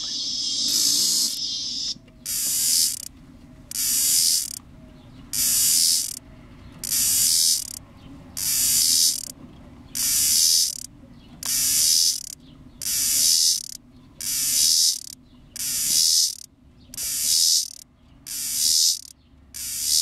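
A continuous cicada buzz, a played-back recording of Robinson's cicada, stops about two seconds in. After that a male Robinson's cicada (Tibicen robinsonianus) calls in regular pulses of high buzzing, about one a second.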